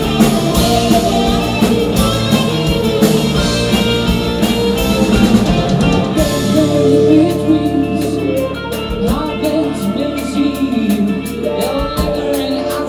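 Live psychedelic hard rock band playing loud: electric guitars, bass guitar and drum kit with steady cymbal and drum hits. A woman's singing voice comes in about halfway through.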